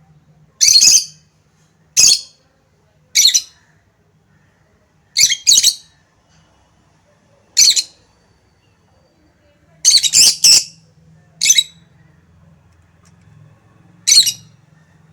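Pet lovebirds calling with short, shrill chirps and squawks, about ten sharp calls, some in quick pairs and a cluster of three about ten seconds in.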